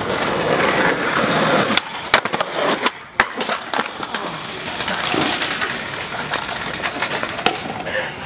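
Skateboard wheels rolling on concrete, then a clatter of sharp impacts about two seconds in as the board and rider slam down in a bail, followed by more wheel rolling and scraping.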